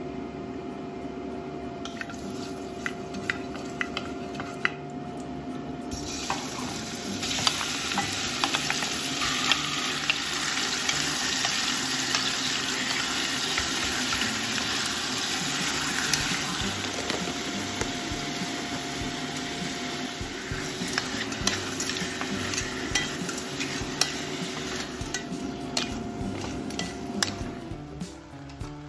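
Chunks of raw pork sizzling as they sear in hot oil in an enamelled cast-iron pot, with a wooden spatula clacking against the pot as they are stirred. The sizzle starts about six seconds in.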